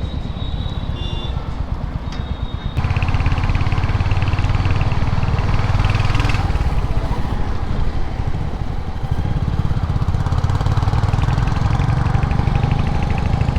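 Motorcycle engine running in city traffic, heard from the rider's own bike, becoming louder about three seconds in as it pulls away, with a steady rush of wind and road noise.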